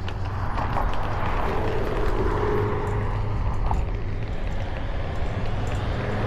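Steady low vehicle rumble, with faint clicks and a brief steady tone partway through.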